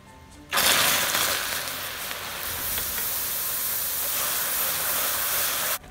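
Cold milk hitting hot caramelised sugar in a pan: a sudden loud hiss and sizzle about half a second in as the caramel boils up, loudest at first, then a steady sizzle that stops abruptly near the end.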